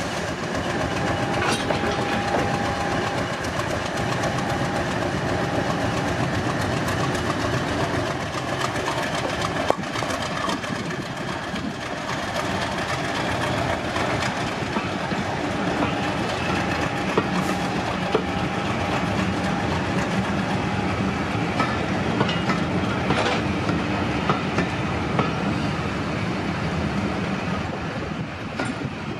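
Diesel locomotive working a train, its engine running steadily with wheel clicks over the rail joints.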